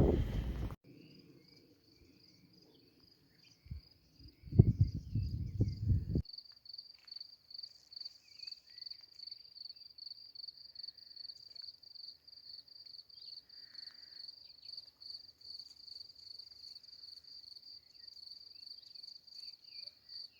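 A cricket chirping in a steady, rapidly pulsing high trill. A few loud low thumps and rumbles on the microphone come about four to six seconds in.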